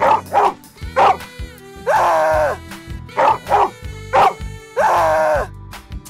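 Dog barking in a repeating pattern: a few short barks, then one longer drawn-out call, heard twice, over light background music.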